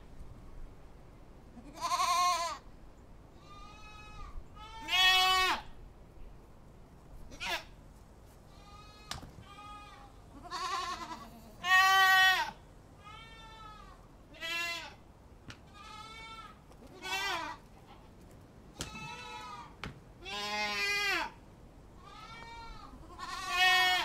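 Goats bleating: about a dozen separate bleats, each half a second to a second long, coming every second or two at differing pitches and loudness, as from several goats, some near and loud, others faint.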